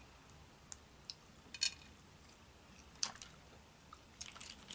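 Faint eating sounds: a handful of soft, scattered clicks and crackles as boiled crawfish shells are picked apart by hand, with some chewing.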